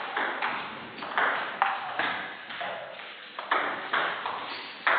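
Table tennis ball being struck by bats and bouncing on the table, a quick irregular series of sharp pocks about two or three a second, each with a short echo in a large hall.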